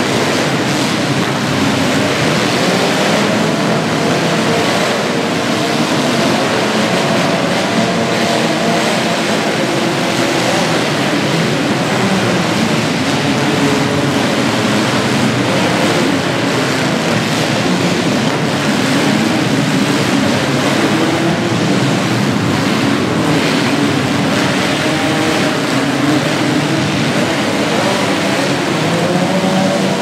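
Many demolition-derby compact cars' engines running and revving at once, a loud, continuous din whose pitch keeps rising and falling as the drivers rev, with several revs rising and falling near the end.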